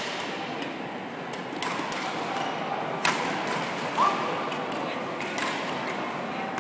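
Badminton rackets striking a shuttlecock during a rally: a series of sharp cracks, the loudest about three seconds in, with a short squeak of a shoe on the court floor about four seconds in.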